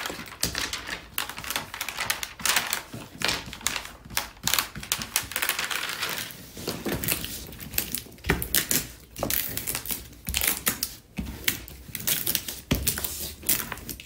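Thick clear plastic cover film on a diamond painting canvas crinkling and crackling as it is handled and smoothed flat by hand, a run of irregular sharp crackles.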